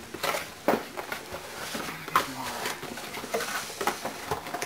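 Cardboard being handled and pressed into place, with a few sharp knocks and rustling.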